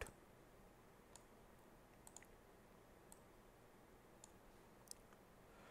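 Near silence, broken by a handful of faint computer mouse clicks, a close pair about two seconds in.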